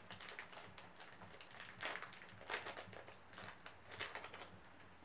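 Faint, irregular clicking and crinkling of a small accessory pack and its parts being handled.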